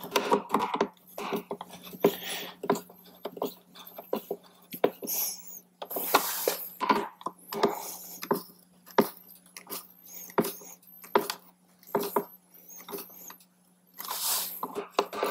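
Screws being tightened by hand with a Phillips screwdriver into a plastic speaker adapter on a motorcycle saddlebag lid: irregular clicks, creaks and scrapes, with a couple of longer rubbing scrapes.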